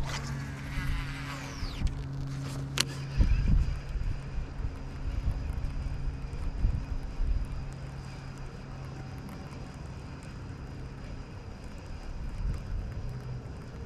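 A baitcasting reel's spool whirring as a lure is cast, slowing with a falling whine over the first two seconds, then a sharp click about three seconds in. Under it, a steady low engine drone runs throughout.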